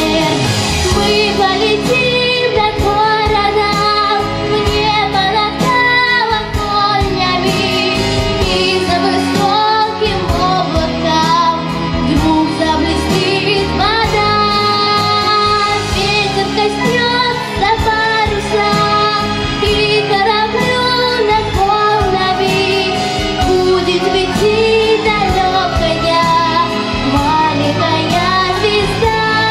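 A girl singing a pop song into a handheld microphone, with instrumental accompaniment.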